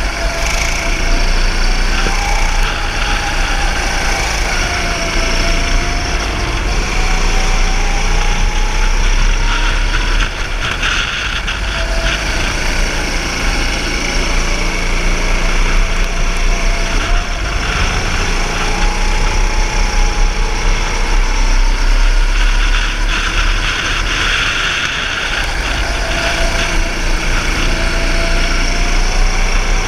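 Go-kart engine heard onboard, running hard around the track, its pitch climbing as the kart speeds up and falling away into the corners, several times over.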